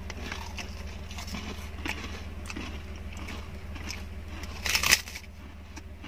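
Crisp puffed rice crackers crunching as they are bitten and chewed, in scattered crackles with one loud crunch about five seconds in, over a steady low hum inside the car.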